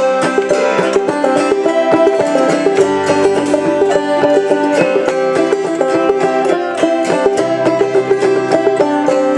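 Clawhammer banjo and autoharp playing an old-time gospel tune without singing: quick, evenly plucked banjo notes over sustained chords, which change a few times.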